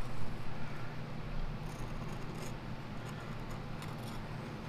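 Long-bladed scissors working into a sheet of 1/16-inch oil-resistant rubber, a few faint snips and blade clicks, over a steady low hum.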